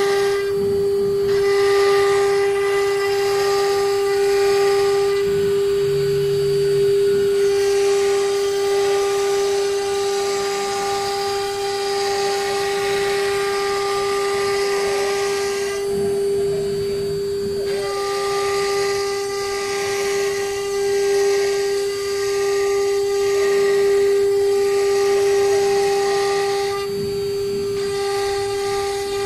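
Water-cooled spindle of a CNC wood router running at speed with a steady high whine, its bit engraving a pattern into an MDF board with a hiss of cutting. The cutting hiss eases off briefly about halfway through and again near the end while the whine carries on.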